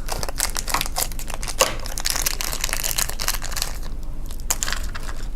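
Thin plastic packaging crinkling and tearing as a small LOB doll packet is pulled open by hand, a dense run of crackles that thins out near the end.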